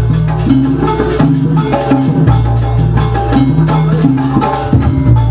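Live jaranan accompaniment music: quick, busy percussion under a pitched melodic line, with long held low notes.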